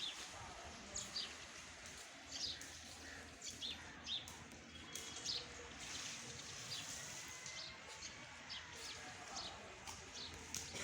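Small birds chirping: short, high calls repeating irregularly about once a second over a steady low background noise.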